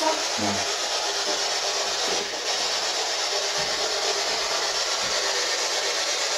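Steady hiss of radio static from a spirit box (PSB11) being used to seek answers, with faint voice-like fragments in the static near the start.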